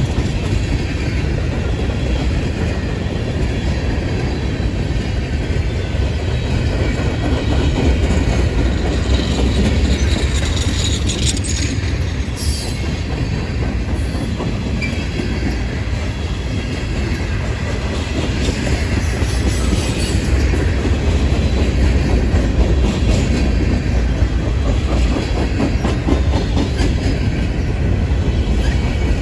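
A train rolling past, a steady loud rumble of railcars with wheels clicking over the rail joints. Brief high-pitched wheel squeals come about a third of the way in and again past the middle.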